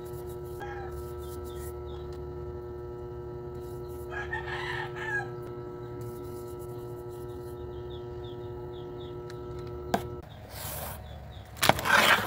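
A rooster crows once, about four seconds in, over a steady electrical hum that stops near the end. In the last two seconds there is loud crinkling and knocking as a package is handled close to the microphone.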